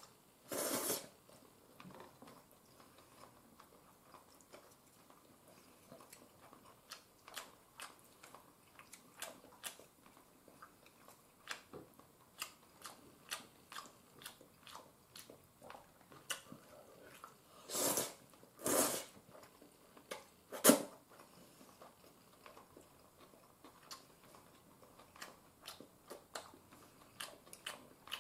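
A person eating fried udon noodles with chopsticks: soft wet chewing and mouth clicks throughout, with longer slurps of noodles about a second in and twice around eighteen to nineteen seconds. A single sharp knock, the loudest sound, comes shortly after those slurps.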